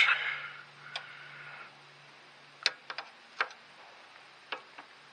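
Sharp, irregular metallic clicks and taps of a wrench and small nut-and-washer hardware being handled against a tractor's linkage fittings. There are about eight clicks, loudest near the middle.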